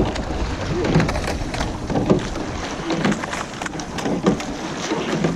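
Rowing shell under way during a hard piece: water rushing and wind noise on the boat's microphone, with repeated short knocks and clicks from the oars and rigging.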